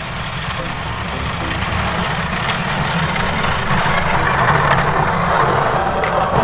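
Pickup truck with a front snowplow approaching, its engine running under a rush of snow being pushed by the blade, both growing steadily louder as it nears.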